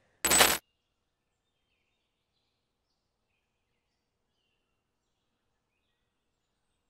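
A single short burst of noise, about a third of a second long, a quarter second in, then silence.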